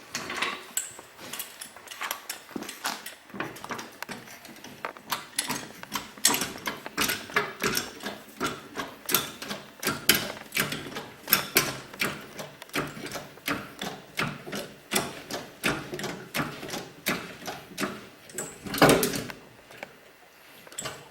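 Hydraulic floor jack being pumped under a car's frame rail: quick, repeated metallic clicks and clanks from the handle strokes, with one louder knock near the end.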